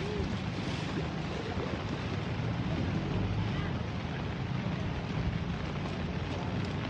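Steady wind noise buffeting the microphone over the rushing of a flooded river in spate.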